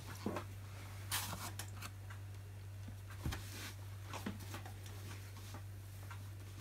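Hands kneading brown bread dough on a floured wooden chopping board, with soft, irregular knocks and scuffs as the board rattles on the table. A steady low hum runs underneath.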